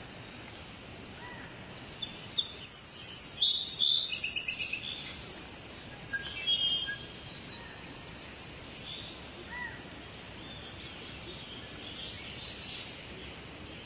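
Small birds chirping and trilling in a couple of bursts, the first and longest a couple of seconds in and a shorter one near the middle, over steady outdoor background noise.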